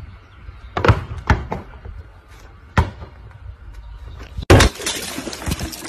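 A ball being struck. There are several sharp thuds about a second apart early on, and the loudest hit comes about four and a half seconds in.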